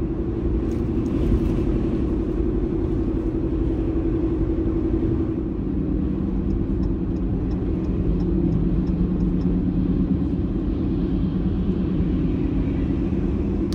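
Vehicle running down the road, heard from inside the cabin: a steady drone of engine and road noise, with a low hum that shifts in pitch about halfway through.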